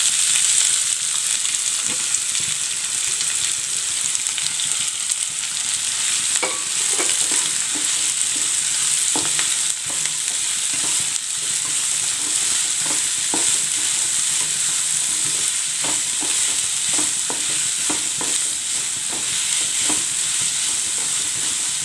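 Freshly added chopped onions sizzling steadily in hot oil in a non-stick kadai, as a spatula stirs and scrapes through them in short strokes.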